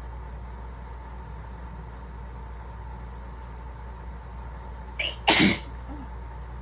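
One sneeze from a sick person about five seconds in: a quick catch of breath, then a sharp, loud burst. A steady low hum runs beneath it.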